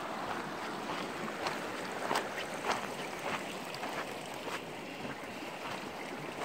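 Steady rush of a shallow creek running over rocks, with footsteps crunching on gravel about every half second.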